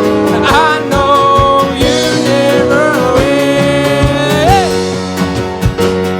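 Live worship band music: sustained chords with a steady drum beat, and a singer's voice gliding and wavering with vibrato over them.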